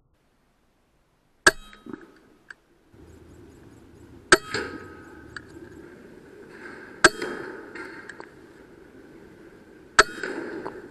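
Four sharp shots from an AGT Uragan 2 .22 PCP air rifle, about three seconds apart, each followed by a brief ringing and a smaller click.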